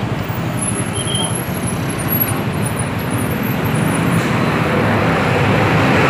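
Sinar Jaya coach bus approaching and passing close by, its engine and tyre noise growing louder over the last couple of seconds, over steady road traffic.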